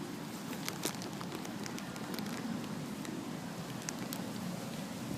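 Outdoor background murmur with a few sharp small clicks and crackles, several about a second in and one more near the end.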